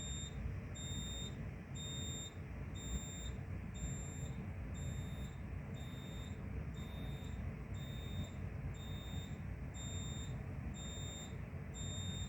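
Fire alarm control panel's piezo sounder beeping, one short high-pitched beep about every second, because the system is in alarm. A low rumble of room noise runs underneath.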